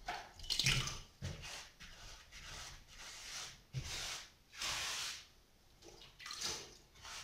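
A brush dabbing and smearing wet clay-and-sand mortar onto a coal stove's cracked surface, a series of irregular wet swishes and squelches.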